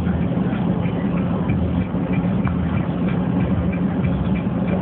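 Steady motor-vehicle engine drone with road noise, low and even throughout.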